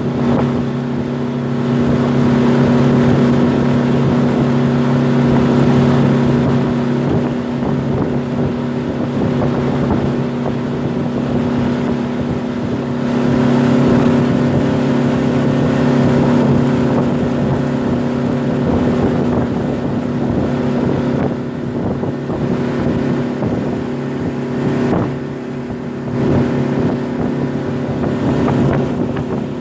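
A Yamaha 50 hp outboard motor runs steadily at cruising speed. Its steady hum is mixed with the rush of the wake and wind on the microphone.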